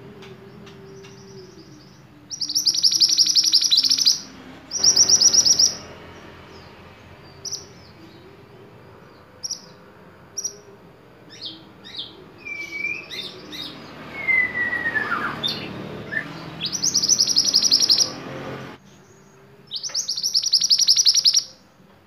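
Male scarlet minivet calling: four loud strings of rapid, high repeated notes, each lasting one to two seconds, with shorter chirps and a falling whistle between them.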